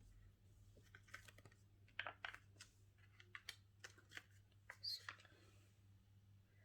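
Faint, irregular small clicks and taps of a plastic bottle of descaling solution being handled, with no pouring heard.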